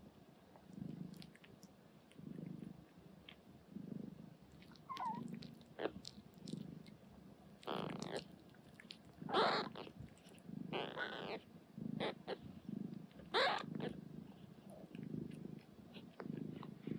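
Cat purring, a low sound swelling and fading about every second and a half with each breath. A few short, louder, higher-pitched squeaks come through over the middle of the stretch.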